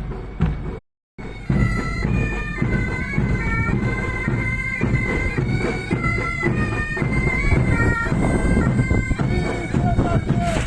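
Military pipe band's bagpipes playing a marching tune over their steady drone, starting about a second in after a brief gap in the sound.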